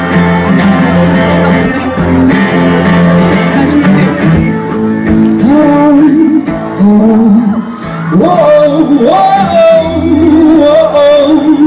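Live acoustic guitar song introduction, with a wordless sung melody coming in about five seconds in.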